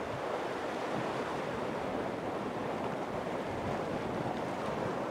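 Sea surf washing against a rocky shore in strong wind, a steady rushing noise with wind buffeting the microphone.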